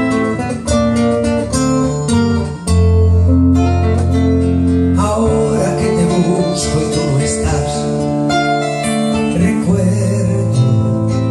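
Acoustic guitars playing picked notes and chords, with a man's singing voice coming in about halfway through.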